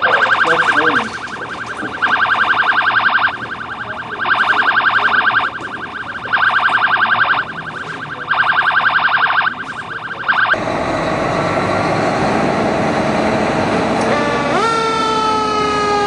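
Fire station alert alarm: a buzzing tone that sounds for about a second and pauses for about a second, over and over, dispatching the crew. After about ten seconds it gives way to a fire truck's engine running, and near the end the truck's siren starts winding up and then falling.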